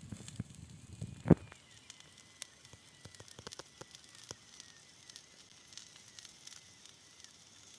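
Wood campfire crackling, with scattered sharp pops and one loud snap about a second in.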